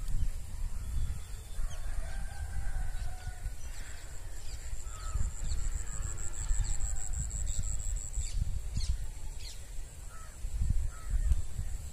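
Wind buffeting the microphone with an uneven low rumble, over faint bird calls and a thin, steady high-pitched tone that swells for a few seconds midway.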